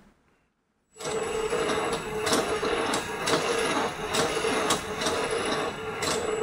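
A LEGO WeDo motor starts about a second in and runs through the model's gears, driving the goalkeeper back and forth. It makes a steady hum with repeated clicks. Its speed is set by the distance sensor's reading as a hand comes close.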